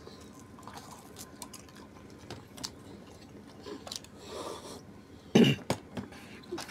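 Close chewing and mouth noises of someone eating grilled pork barbecue skewers, with small clicks scattered through. About four seconds in, a slurp as sauce is sipped from a small metal bowl, then a short louder sound a little after five seconds.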